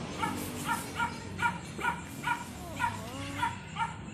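A small dog yapping over and over, short high barks at an even pace of about two to three a second.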